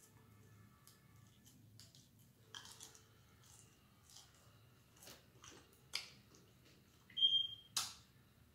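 Close mouth sounds of a person eating fried chicken wings: soft chewing with scattered wet smacks and clicks. A short high squeak and a couple of sharper smacks come near the end, the loudest part.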